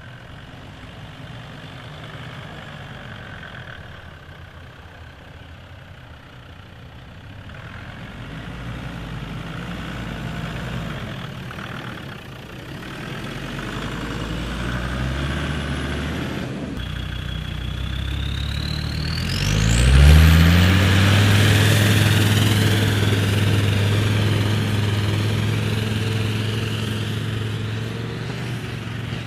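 Four-wheel-drive off-road vehicle engines running and revving. About two-thirds in the sound changes abruptly: a whine rises steeply in pitch and a steady, louder low hum sets in.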